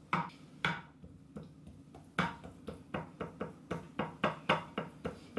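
A spoon tapping and knocking against a glass baking dish while pressing oat mixture flat: two taps near the start, then a quicker run of about four taps a second from about two seconds in.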